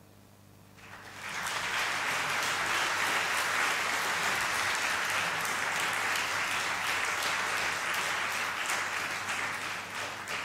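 Theatre audience applauding, starting about a second in, holding steady and dying away near the end.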